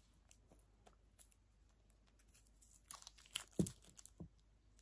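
Small packaging being handled and peeled open in the fingers: faint rustling, then a brief burst of crinkling and tearing crackles a little after three seconds in.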